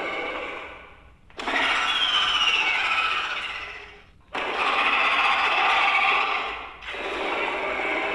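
A person making raspy, screeching vocal sound effects: long rough screeches of two to three seconds each, with short breaks about a second in, after about four seconds, and shortly before the end.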